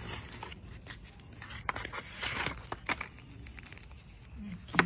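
Thin protective paper wrap crinkling and rustling in short bursts as it is pulled out of a cardboard watch box, with a sharper tap near the end.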